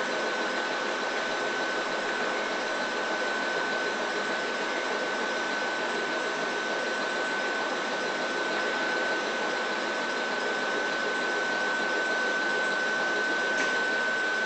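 Standing Ohmi Railway 800-series electric train (ex-Seibu 401 series) with its AK-3 air compressor running faintly under a steady mechanical hum and a constant high-pitched tone.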